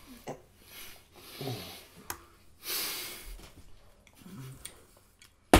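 Quiet room with a person's breathing: a loud breathy exhale about two and a half seconds in, a couple of soft low murmurs, and a sharp click just before the end.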